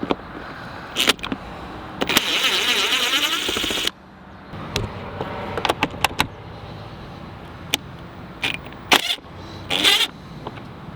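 Ratchet and 10mm socket working the bolts of a Ram 3500's air filter housing: a loud, even rasping run of about two seconds that cuts off suddenly, then scattered metallic clicks and knocks.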